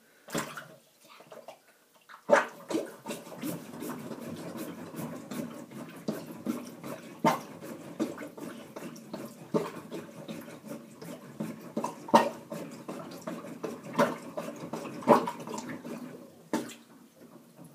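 A cheap rubber sink plunger pumped over the drain of a clogged, water-filled sink. Water sloshes and gurgles, with sharp sucking pops at irregular intervals as the cup works the blockage. The plunging starts about two seconds in.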